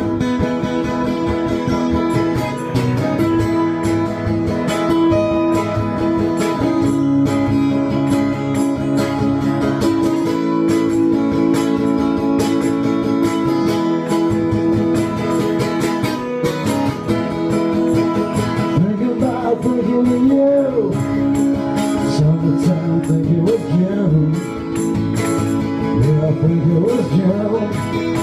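Two acoustic guitars strummed together, playing a song's instrumental opening. A man's singing voice comes in about two-thirds of the way through.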